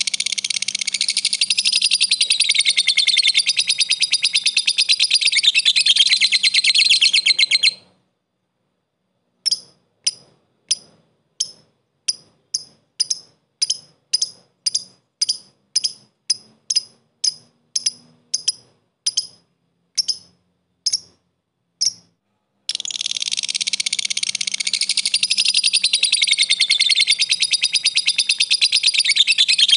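Lovebird calling: a long, fast, continuous chattering trill (ngekek) that stops about eight seconds in. Then comes a string of about twenty separate short tick notes (ngetik), spaced under a second apart. The long trill starts again at about 23 seconds and runs on.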